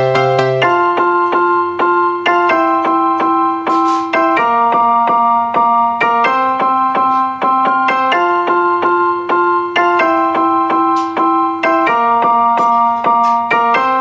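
Background music on an electric piano: held chords struck again at a quick even pulse, the chord changing every second or two.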